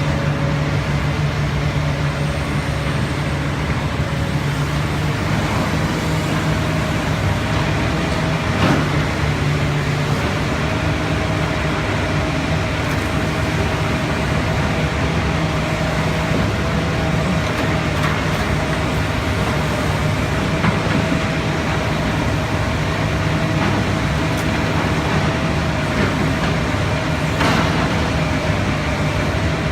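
Komatsu PC400 excavator's diesel engine running steadily with a constant higher whine above the engine hum. A few brief knocks come through, one about nine seconds in and another near the end.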